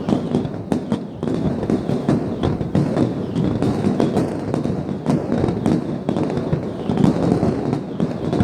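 An aerial fireworks display with shells bursting in rapid, overlapping succession: a continuous run of booms and sharp cracks.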